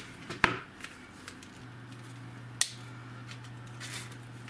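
Small plastic items being handled in a cardboard box, with a sharp click about half a second in and another just after two and a half seconds, and faint scattered ticks between them. A steady low hum runs underneath.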